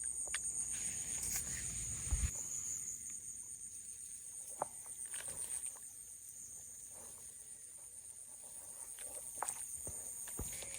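Insects, crickets or cicadas, shrilling steadily with a fast pulse. A few scattered clicks and knocks, and a low rumble for the first couple of seconds.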